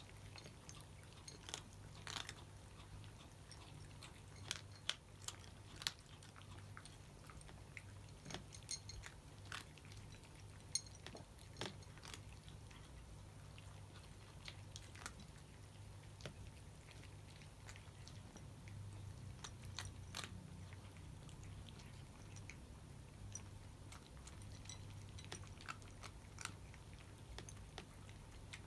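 Cats chewing dry kibble: irregular sharp crunches, a few louder than the rest, over a low steady hum.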